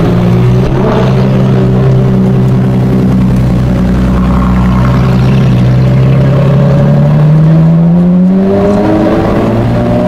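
Ferrari LaFerrari's V12 engine running at low revs as the car rolls off, its pitch rising from about six seconds in as it accelerates gently, then levelling off near the end.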